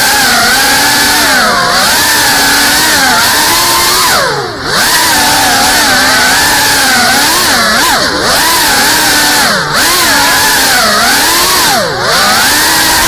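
GEPRC CineLog 35 cinewhoop's brushless motors and ducted propellers whining in flight. The pitch rises and falls constantly with the throttle and drops sharply about four and a half, eight, nine and a half and twelve seconds in, where the throttle is cut.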